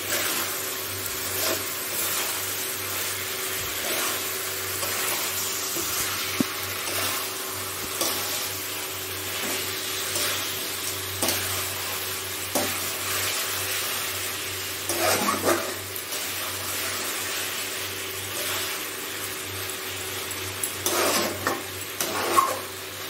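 Mutton frying in spice paste in a nonstick kadai, with a steady sizzle, while a metal spatula stirs and scrapes the pan. The spatula knocks against the pan in scattered clicks. This is the kosha stage, the meat being browned in the masala.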